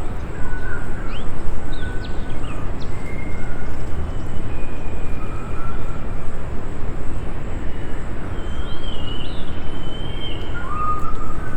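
Outdoor nature ambience: a river rushing close by as a steady low noise, with songbirds chirping and whistling short notes over it and a steady high buzz of crickets.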